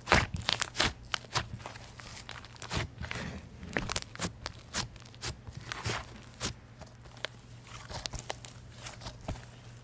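Thick, fluffy white slime being pressed, squeezed and folded by hand, giving irregular sticky clicks and crackling pops, thickest in about the first second.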